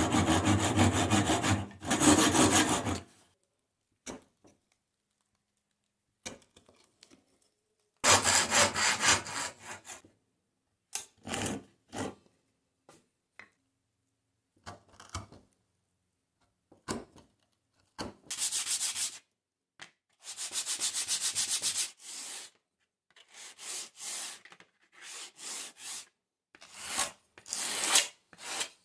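A hand saw cutting wood in quick strokes, then short scrapes of a chisel paring wood in separate bursts. Near the end a small wooden block is rubbed back and forth on sandpaper, about one stroke a second.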